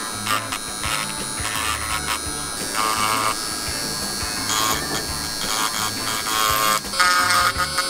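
Small USB-powered pen-style rotary tool (GiC Tiger Drill) running at high speed with a steady high whine as its cutter bit chips at the edges of a plastic model part, over background music.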